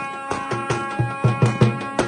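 Tupan drums beaten in a quick, even dance rhythm, deep stick strokes with lighter switch taps between them, under a zurna playing shrill held notes.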